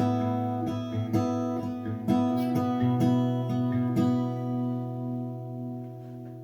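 Acoustic guitar strumming the closing chords of a song. The last chord is struck about four seconds in and left ringing as it fades away.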